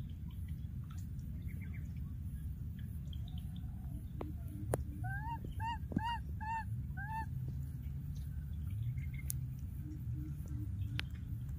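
Baby macaque giving a quick run of about six short coo calls a little past the middle, each rising and falling in pitch: separation calls after losing its playmate. A steady low rumble runs underneath.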